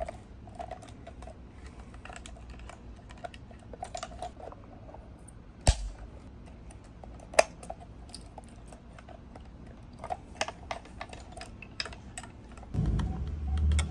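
Irregular small plastic clicks and rattles from a plastic fuel pump hanger assembly being handled and snapped back together, with two sharper, louder clicks about six and seven and a half seconds in. A low rumble comes in near the end.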